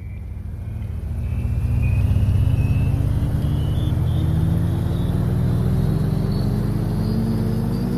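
Car engine and road noise heard from inside the cabin, fading in over the first couple of seconds and then steady, with an engine whine that climbs slowly and evenly as the car speeds up.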